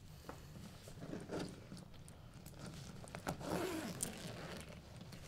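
Zipper of a soft-sided suitcase being pulled open, in short scraping runs with small clicks and rustling, about a second in and again from about three to four seconds in.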